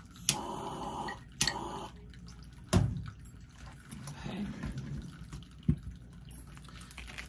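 A few separate knocks and light handling noises of objects being moved and set down on a tabletop, the loudest knock about three seconds in.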